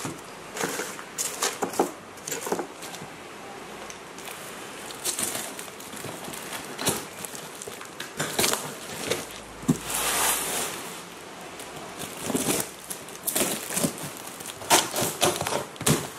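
A cardboard shipping box being cut open: a blade slicing through packing tape and plastic wrap, then the cardboard flaps pulled apart. The sound is a run of uneven scrapes, rustles and crinkles.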